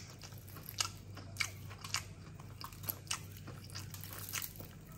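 Crisp fried-chicken coating made from plain wheat flour and baking soda, crunching in a dozen or so short, irregular crackles as it is eaten and pulled apart.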